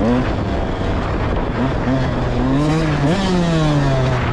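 Off-road vehicle engine running under throttle on sand, its pitch rising and falling several times as the rider gets on and off the gas, with a sharp rev and drop about three seconds in.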